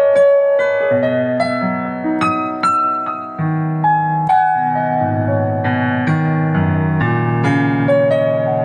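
Digital piano playing its sampled Yamaha CFX grand piano voice, played with both hands: a slow melody line, with bass notes coming in underneath about a second in.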